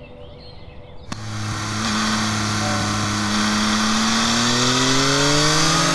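Yamaha XSR900 motorcycle's three-cylinder engine pulling under acceleration, cutting in suddenly about a second in. Its pitch rises steadily for about five seconds as the revs climb.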